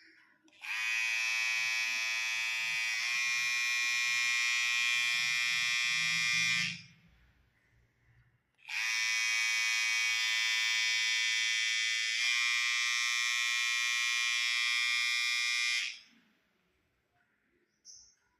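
Electric hair trimmer switched on and running with a steady high buzz for about six seconds, switched off, then run again for about seven seconds.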